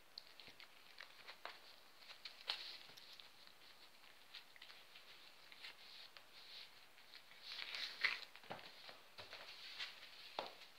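A cat pawing and biting at a ring of sausage on a carpet: faint scattered scratches, rustles and small taps, busiest about eight seconds in.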